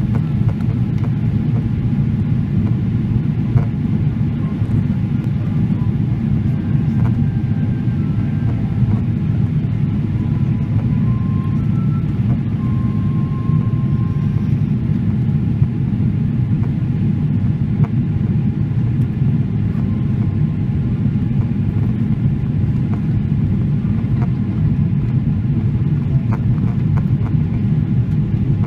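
Steady low cabin rumble inside a Boeing 777-300ER airliner in flight on approach, the mix of engine and airflow noise heard through the fuselage.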